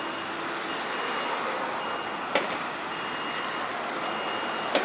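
Street traffic with a PCC streetcar rolling through a curve, marked by two sharp clanks, one about two seconds in and one near the end. A high electronic beep repeats about once a second throughout, like a vehicle's reversing alarm.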